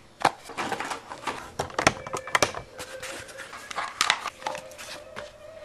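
Irregular sharp clicks and rustling close to the microphone, the sound of handling and of movement in bedding. A faint steady tone comes in about two seconds in.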